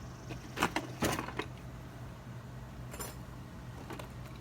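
A few light clicks and clinks of small hard objects being handled: two close together about a second in, another around three seconds in. A low steady hum runs beneath them.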